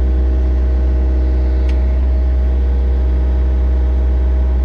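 Excavator's diesel engine running steadily at a constant speed, a loud even drone, with a single short click about a second and a half in.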